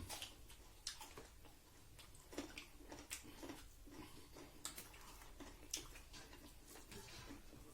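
Faint, irregular clicks and soft smacks of people eating a rice-and-curry meal: chewing and hands or utensils on plates.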